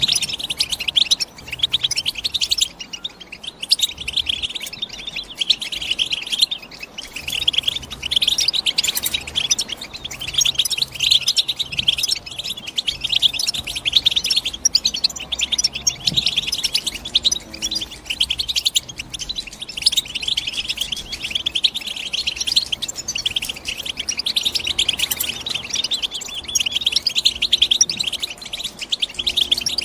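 European goldfinch singing: a long, continuous run of rapid twittering chirps and trills with no pauses.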